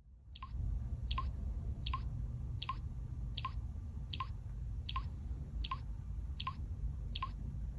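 Massage chair running: a steady low motor hum with a short, sharp tick repeating about every three-quarters of a second.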